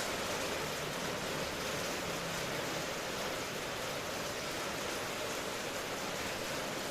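Steady rain, an even hiss with no let-up.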